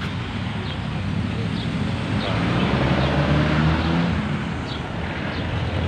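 Street traffic with a vehicle engine running close by, its low hum strongest from about two to four and a half seconds in.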